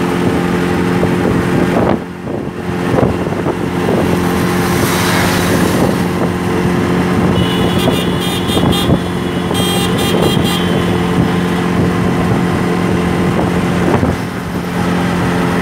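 Auto-rickshaw engine running steadily at speed, heard from inside the open-sided cabin with wind and road noise. The loudness dips briefly about two seconds in, and a few quick high-pitched pulses sound between about eight and ten seconds in.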